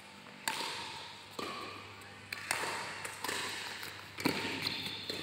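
Badminton doubles rally: racket strokes hitting the shuttlecock about once a second, six sharp hits in all, each followed by a short fading tail.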